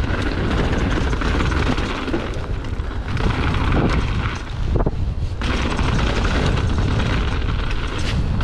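Wind buffeting the camera microphone while a mountain bike rolls fast down a dirt jump trail, with tyre rumble and a few knocks over the bumps.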